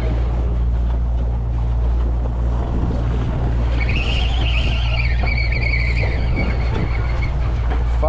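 Steady drone of a fishing boat's engine under wind and sea noise while a baitcasting reel is cranked. About halfway through, a high whine comes in, wavering at first and then holding level for about three seconds.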